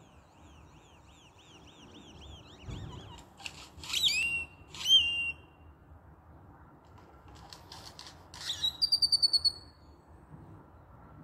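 Grackles calling: a run of quick, repeated rising-and-falling whistles, then loud harsh hissing notes that slide into whistles, and near the end a fast clicking rattle that runs into a steady high whistle. The calls sound strangely electronic, like a speaker connecting.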